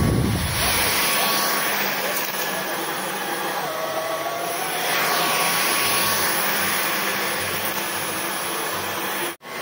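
Cordless stick vacuum running on carpet: a steady hiss with a faint thin whine, swelling and easing a few times. The sound cuts out for a moment near the end.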